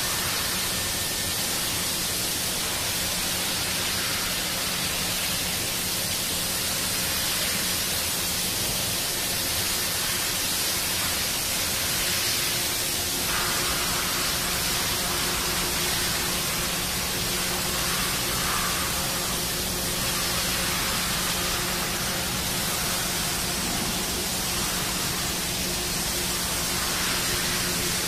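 Steady machine-shop background noise: an even rushing sound with a faint low hum underneath, unchanged throughout.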